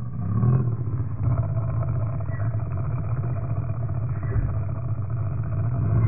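Low, steady rumbling drone of a horror sound effect designed from mountain lion growl recordings, swelling up in the first second and then holding steady.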